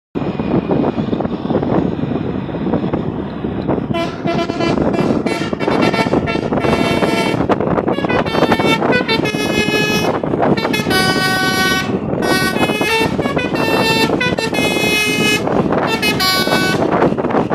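Basuri multi-tone musical horns sounded in a horn war by a passing convoy: heavy engine and road noise for about four seconds, then a rapid string of loud horn blasts to the end, their chords changing pitch from blast to blast like a tune.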